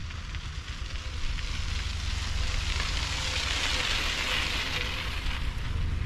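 Bicycle tyres crunching on a sandy gravel path as cyclists pass close by: a crackling hiss that swells to its loudest about three to four seconds in and then eases, over a steady low rumble.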